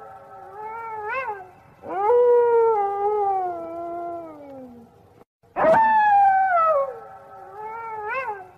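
Canine howling: long drawn-out howls that slide down in pitch, two full ones a few seconds apart, with short wavering calls in between.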